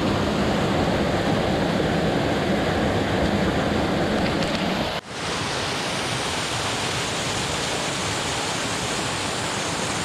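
Water cascading and rushing over rocks in a small mountain stream. It makes a steady noise that drops out for an instant about halfway through, then carries on a little quieter.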